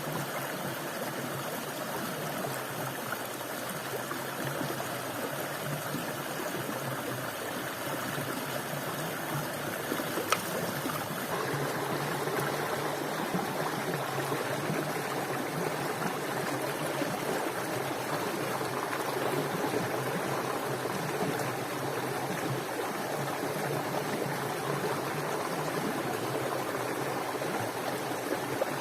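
Steady rush of running water, with one sharp click about ten seconds in.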